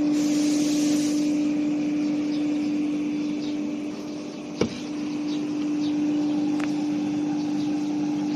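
ATC CNC nesting router's spindle running with a steady tonal hum over a broad machine hiss, with a single sharp click about halfway through.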